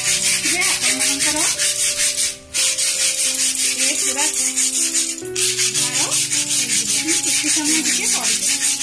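Sandpaper scrubbed rapidly back and forth over a steel knife blade coated in roasted salt: an even rasping stroke several times a second, with a brief pause about two and a half seconds in. Background music plays underneath.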